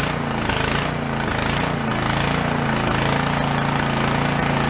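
Small engine of a Troy-Bilt rear-tine tiller running steadily, just started on choke and warming up. Its pitch wavers slightly in the first couple of seconds, then settles.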